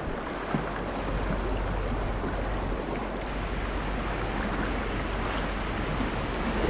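Steady rush of river water running over shallow riffles around a moving kayak.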